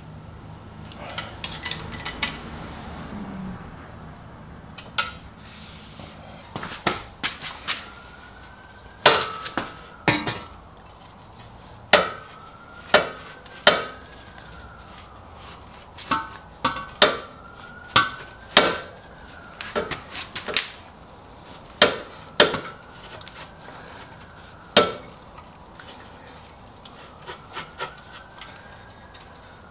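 Sharp metal clanks and knocks, a dozen or more with a short ring, as a Honda Gold Wing GL1100's exhaust header pipe and chrome muffler are handled and fitted together. Faint squeals that rise and fall come in between them.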